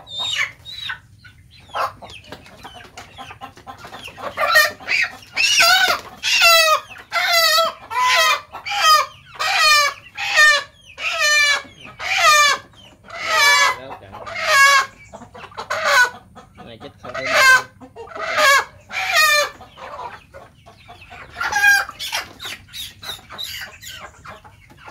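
A chicken squawking over and over in loud, wavering calls, just over one a second, as a bird is held upside down by the legs for a vaccine injection; the squawks fade out after about twenty seconds, with a few more near the end.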